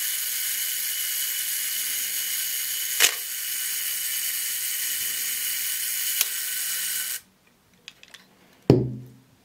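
Zenit 12XP's mechanical self-timer whirring steadily, with a couple of small clicks, then stopping abruptly about seven seconds in as it runs down. Near the end comes a single loud mechanical clack.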